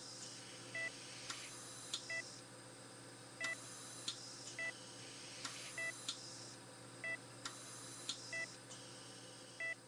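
Short electronic beeps repeating about once every 1.2 seconds, with a brief hiss about every two seconds and a faint steady hum beneath.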